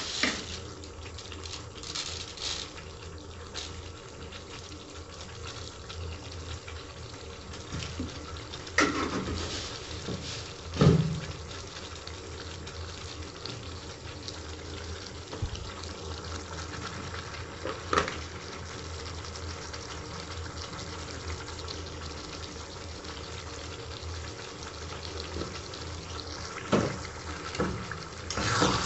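Chicken and jackfruit-seed curry simmering in a pan, its gravy bubbling steadily. A few short knocks break in, the loudest about eleven seconds in.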